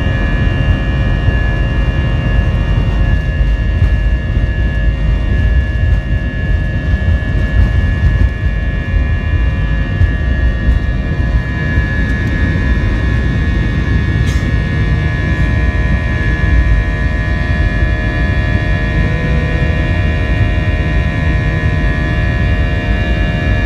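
Airbus A319 jet engines at take-off thrust, heard from inside the cabin over the wing: a loud, steady low rumble with a high steady whine, through the take-off roll and lift-off.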